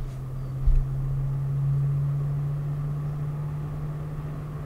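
NoiseBlocker NB-eLoop X B14-P 140 mm fan running on a radiator with a steady low hum. This is the odd motor noise the fan is prone to, which mostly shows up as its speed increases. There is a short low thump under a second in.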